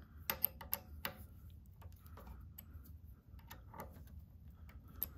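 Faint, irregular small clicks and ticks of the top clamping screw on a Cowboy CB-3200 walking-foot linkage being tightened, with a few sharper clicks in the first second.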